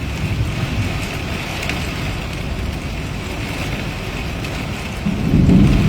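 Heavy rain falling steadily in a thunderstorm, with a low rumble underneath that grows louder about five seconds in.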